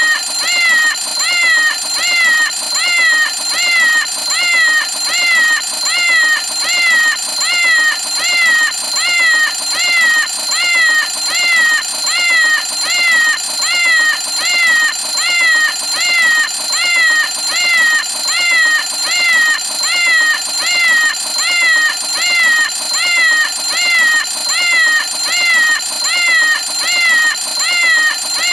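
Cartoon cat-faced alarm clock going off, its alarm a string of synthetic meows repeating evenly, about three every two seconds, over a steady high ringing tone.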